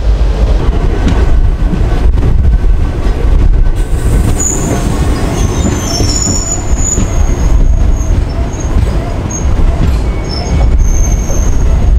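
Passenger train rumbling along the rails, with heavy wind buffeting the microphone at an open coach door. From about four seconds in, high wheel squeals come and go as the train pulls into a station.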